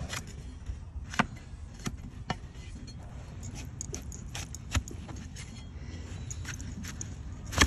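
A broad, cleaver-like hoof knife shaving horn from a donkey's hoof: irregular sharp, crisp cuts and scrapes, about eight in all, the loudest near the end, over a low background rumble.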